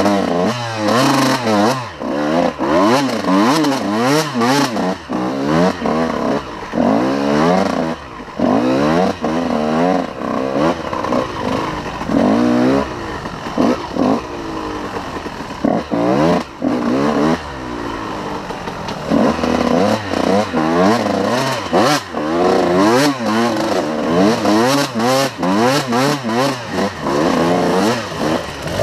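2002 Honda CR125's single-cylinder two-stroke engine revving hard and dropping off over and over as the dirt bike is ridden along a rough trail, with a longer drop-off about two-thirds of the way through. Knocks and clatter from the bike run through it.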